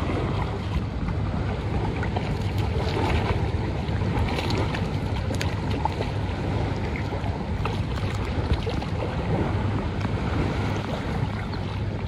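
Steady wind buffeting the microphone over choppy lake water lapping around a wading angler, with a few short splashes near the middle as a hooked largemouth bass thrashes at the surface.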